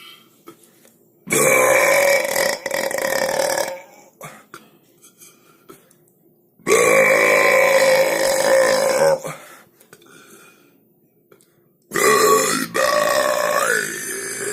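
Three long, loud human burps, each lasting about two and a half seconds, a few seconds apart; the last one bends in pitch near its end.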